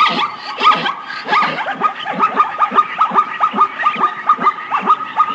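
Zebra barking: a rapid run of short, high barking calls, repeating about five times a second through the second half.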